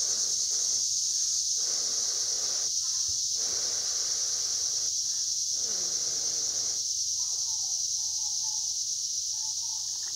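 Someone blowing hard across a cup of just-boiled hot cocoa to cool it: four long breathy blows, the last ending about seven seconds in. A steady high insect chorus runs underneath.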